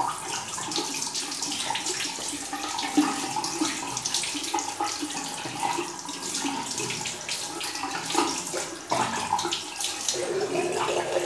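Bathroom tap running into a sink, with irregular splashing as water is scooped over a freshly shaved head to rinse it.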